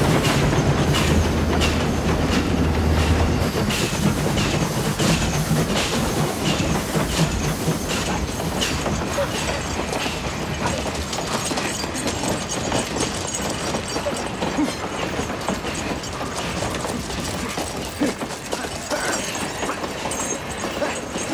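Freight train rolling past, its wheels clacking in a steady rhythm over the rail joints. A low rumble underneath fades out about halfway through.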